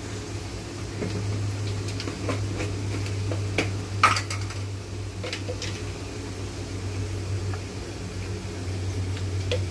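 Scattered light clicks and knocks of kitchen utensils and dishes, the sharpest about four seconds in, over a steady low hum.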